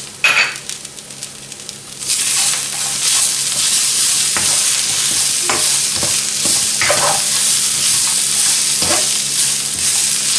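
Kale, raisins and garlic sizzling in a wok while a spatula stirs and tosses them. The sizzle jumps louder about two seconds in, once the stirring begins. The spatula scrapes and knocks against the pan several times.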